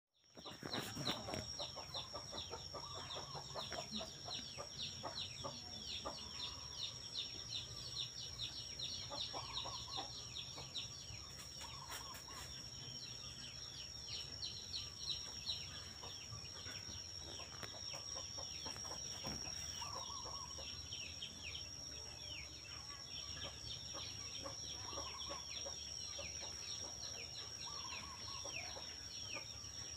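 Outdoor birdsong: many small birds chirping rapidly and without pause, with a short lower call every few seconds and a steady high-pitched tone underneath.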